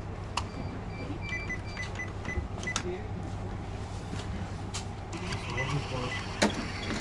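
Checkout equipment at a shop counter: a run of short electronic beeps with sharp clicks, a second set of beeps later, over a steady low hum.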